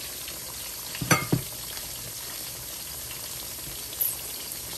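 Steady sizzle of food frying on the stove, with a brief knock about a second in.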